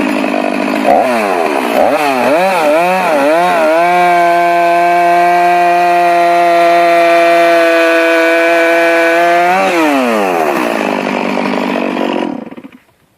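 Stihl MS 460 two-stroke chainsaw revved in several rising-and-falling surges, then held at a steady high pitch for about six seconds while cutting into a large tree trunk. The throttle is then released and the engine winds down, fading out near the end.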